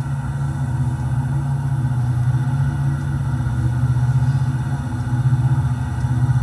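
HO scale model train running on the layout: a steady low hum with a fast, fine flutter.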